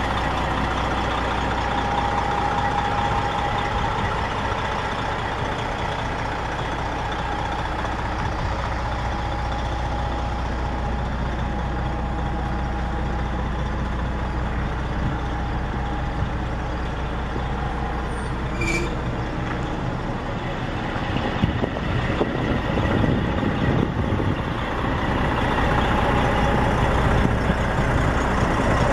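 Dump truck's Detroit Diesel Series 60 inline-six diesel running steadily at idle. After about 20 seconds the low hum gives way to a rougher, slightly louder noise.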